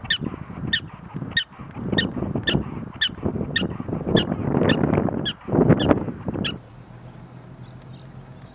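Black-tailed prairie dog giving its repeated alarm call: about a dozen sharp, high chirping barks, nearly two a second, which stop about six and a half seconds in. A low rushing noise runs beneath the calls and stops with them.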